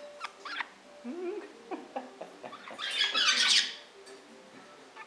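Pet birds calling: scattered short chirps and clicks, then a loud, harsh squawk about three seconds in that lasts under a second.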